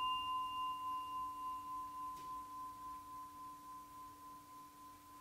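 A small struck bowl bell ringing on after its strike, with a clear steady tone over a lower hum. The ring wavers regularly as it slowly fades to almost nothing.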